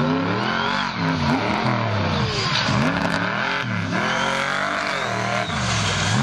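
Monster mud truck's engine revving hard, its pitch dropping and climbing again several times as the throttle is lifted and stabbed.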